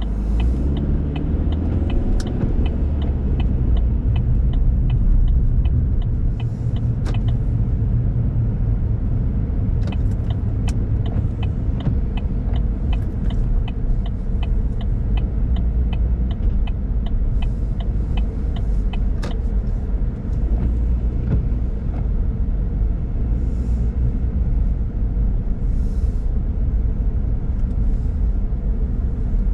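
Car engine and tyre rumble heard from inside the cabin as the car pulls away, the engine note rising in the first few seconds, then running steadily on wet pavement. A turn signal ticks about twice a second and stops about two-thirds of the way through.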